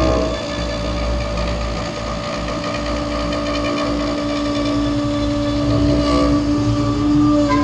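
CNC router spindle running at about 18,000 rpm with a spiral bit milling a pocket in end-grain larch: a steady whine over the rush of the cut.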